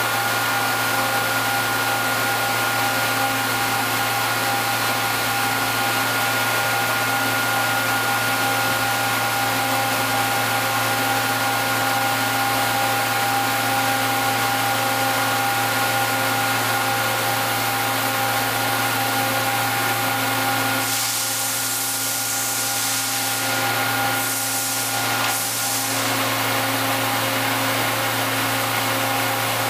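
Steady machine hum with a few fixed whining tones from the powered-up Niigata HN100B horizontal machining center. About two-thirds of the way in, the hum dips and a hiss comes up three times in quick succession.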